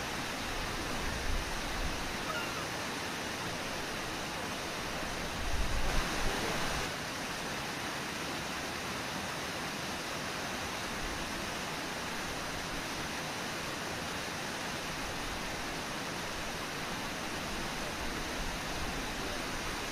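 Steady rush of Brooks Falls' waterfall and the whitewater rapids below it, with a brief louder, low rumble about six seconds in.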